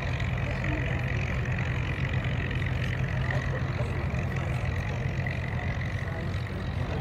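Boeing B-29 Superfortress's four Wright R-3350 radial engines running at takeoff power as the bomber climbs out, a steady low engine drone with a steady high tone over it.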